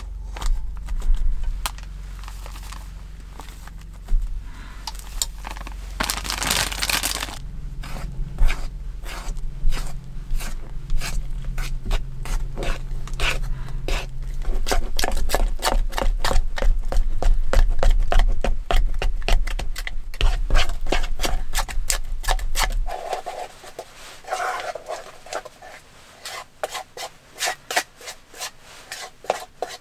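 A spoon stirring and scraping inside a metal camping mug, a quick run of clicks and scrapes as powdered mix is worked into a batter, with a brief rustle about six seconds in. A low steady hum sits underneath and stops about 23 seconds in, after which the stirring clicks come fast and even.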